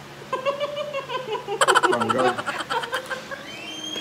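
A child laughing: a high-pitched giggle building to a fast run of laughter pulses, loudest about a second and a half in, then trailing off into squeals.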